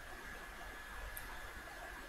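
Quiet background hiss with a steady thin high tone and a low hum running under it; no speech.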